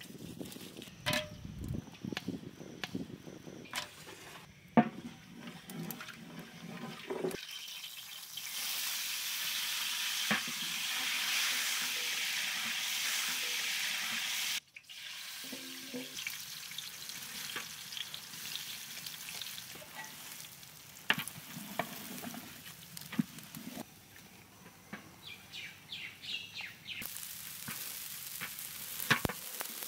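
Hot oil sizzling in a large aluminium pot as bay leaves and whole spices fry, with a wooden spatula scraping and stirring against the pot. The sizzle swells into a steady hiss that cuts off suddenly about halfway through, then returns fainter under more stirring as rice is turned in the oil near the end.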